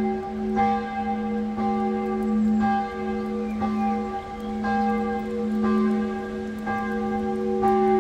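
Church bells ringing, with a fresh strike about once a second over a steady low hum that carries between strokes.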